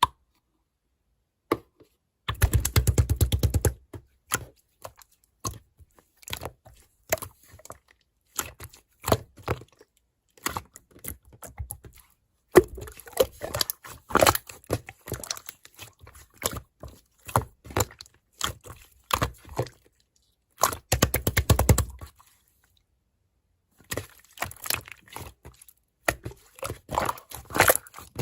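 Slime being squeezed and worked by hand, giving irregular crackling clicks and pops, with two denser stretches of rapid crackling, one about two seconds in and one past twenty seconds.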